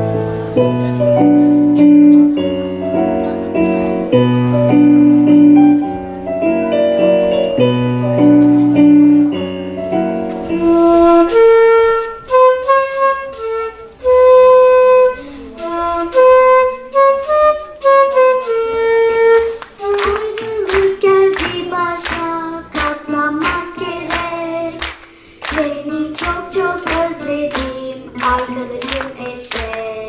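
A child's solo keyboard piece in steady chords, giving way about a third of the way in to a solo flute melody, then from about two-thirds in to an acoustic guitar played with plucked notes.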